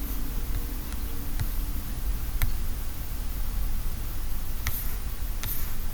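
Steady low background hum and hiss, with a few faint, scattered clicks.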